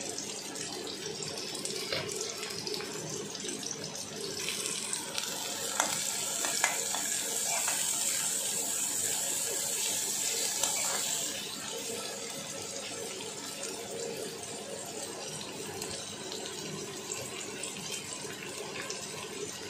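Sliced onions and green chillies sizzling in hot oil in a kadhai, the sizzle growing louder for several seconds in the middle as they are stirred, with a few clicks of the spoon against the pan.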